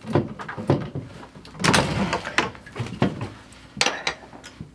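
A length of water pipe being test-fitted and handled at a connector overhead: a series of sharp clicks and knocks, with a sliding scrape about two seconds in.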